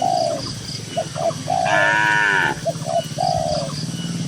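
A cow moos once, about two seconds in, a drawn-out call that bends down in pitch as it ends. Shorter low calls sound around it, and a few faint high bird chirps come twice.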